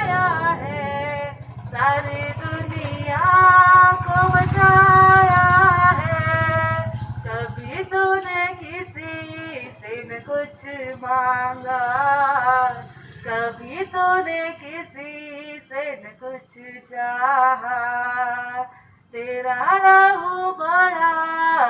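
A woman singing a Hindi Christian hymn into a handheld microphone, with long held notes that bend in pitch. A low hum runs underneath and stops about eight seconds in.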